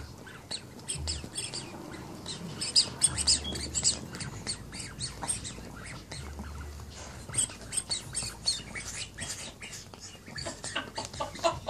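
Dachshund wriggling and rolling on a cotton quilt against a baby: a quick, irregular run of rustles and scuffs.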